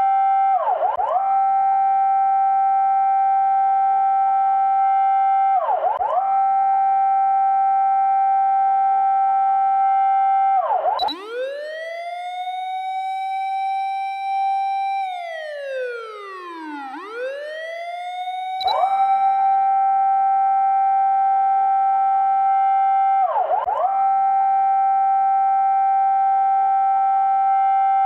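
Fire-engine siren sound with a discordant, dissonant tone: a loud held wail that dips briefly in pitch about every five seconds. Around the middle it turns for several seconds into a quieter wail that rises, holds, slides down, then shoots back up to the steady held tone.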